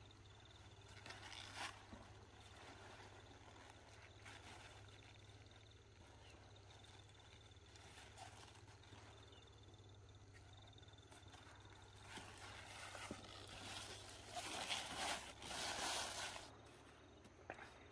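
Faint outdoor ambience: a low steady hum and a thin high tone coming and going, with a few seconds of louder rustling near the end.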